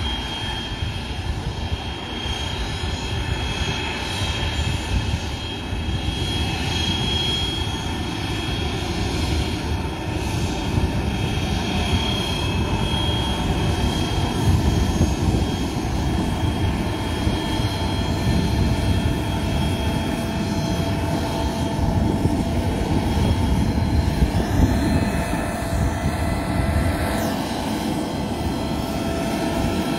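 Aircraft engines running steadily as the plane taxis into its parking position, a dense rumble with a thin high steady whine.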